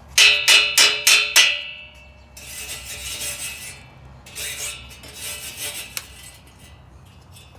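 Metal struck five times in quick succession, each strike ringing on, followed by two stretches of scraping lasting about a second each.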